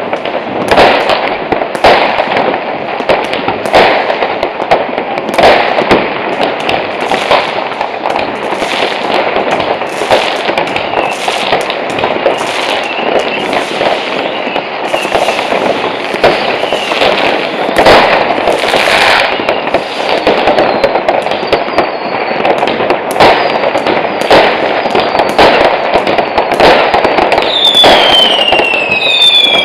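Fireworks: an unbroken string of firecracker bangs and rocket bursts over steady crackling. Near the end come several whistles falling in pitch.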